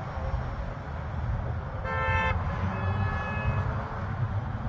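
A vehicle horn toots twice, a short blast about two seconds in and then a longer one, over a steady low rumble.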